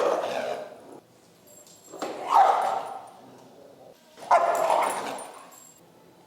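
A dog barking three times, about two seconds apart, each bark trailing off over about a second.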